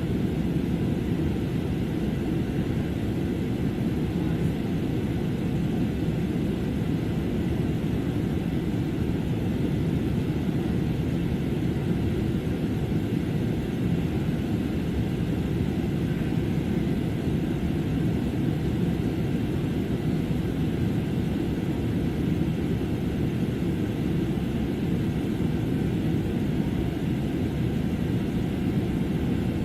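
Steady low rumble inside a jet airliner's passenger cabin in flight: engine and airflow noise, even and unchanging.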